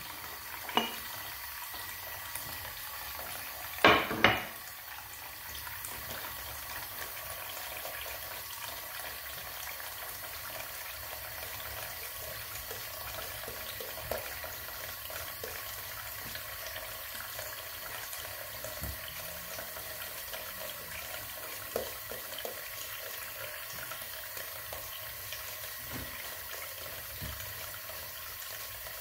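Bathroom sink tap running steadily, with a short loud splash of water about four seconds in. A boar-bristle shaving brush works lather over stubble.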